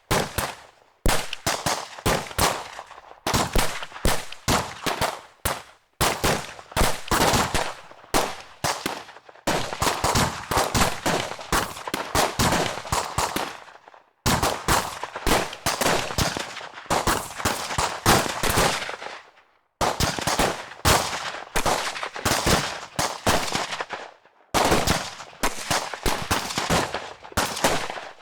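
Gun battle: rapid gunfire in bursts of many shots, with a short pause every few seconds between the bursts.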